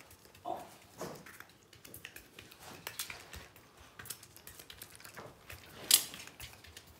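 Scattered light clicks and taps, with one sharper click about six seconds in.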